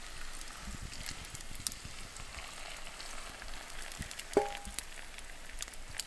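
Boiling water poured from a steel pot onto dry instant noodles in a bowl, hissing and crackling, with a campfire crackling alongside. About four and a half seconds in, a brief ringing note sounds once.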